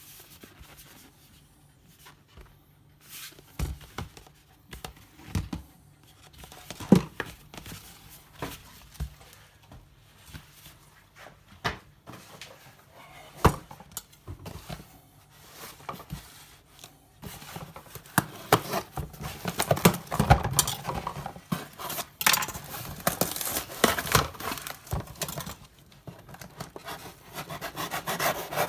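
Handling sounds from a cardboard shipping box and its contents: scattered knocks and rubs at first, then in the second half a dense run of tearing and crinkling as the taped box is pulled open.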